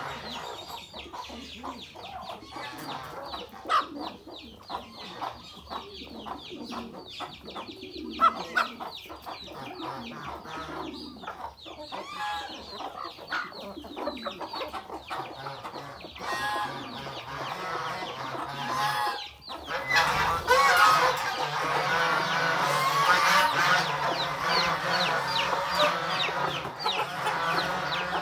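A flock of chickens clucking while pecking rapidly at feed in a tyre trough, with many quick clicks. It grows louder and busier about two-thirds of the way in.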